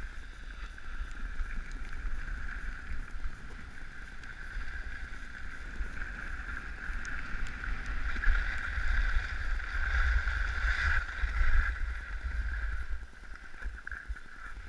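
Wind rumbling on the microphone of a camera moving downhill, with the steady hiss and scrape of skis sliding over hard-packed snow; both grow louder from about eight to twelve seconds in.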